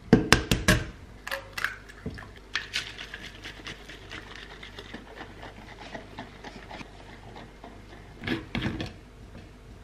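An egg cracked into a plastic crêpe-batter shaker, with sharp knocks in the first second. The capped shaker is then shaken hard to mix the batter, a fast run of knocks and sloshes for several seconds, with a louder cluster of knocks near the end.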